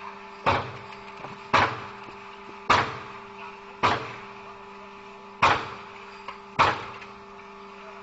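Hammer striking a steel concrete pump delivery pipe, six sharp blows roughly a second apart, each with a short ringing tail, over a steady machine hum.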